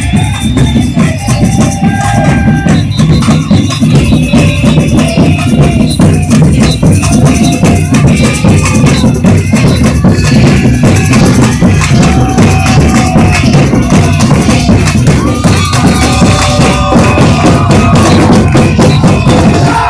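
A carnival samba batucada drum section playing loud and steady: deep bass drums under a dense, driving rhythm, with shakers and jingles on top. The playing stops abruptly right at the end.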